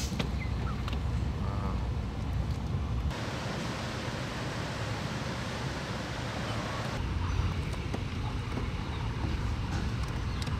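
Steady low rumble of vehicle engines and traffic noise. The sound changes abruptly twice: about three seconds in the low rumble drops away to a brighter, even hiss, and about seven seconds in it returns.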